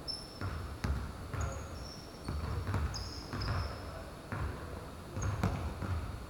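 A basketball bouncing on a court: irregular thuds, several in a few seconds, with short high-pitched squeaks in between.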